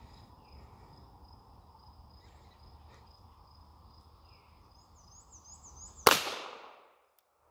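A single 9mm pistol shot from a CZ 75 P-01 about six seconds in, fired after a long hold on aim: a slow, deliberate trigger pull in an accuracy drill. Insects chirr steadily before it, and the shot's ring dies away in under a second.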